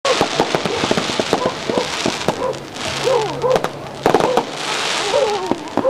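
Aerial fireworks going off: many sharp pops and bangs, with spells of dense crackling.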